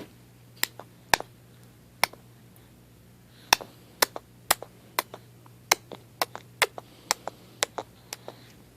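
A series of sharp taps or knocks, a few scattered at first and then coming about two a second from a little before the middle.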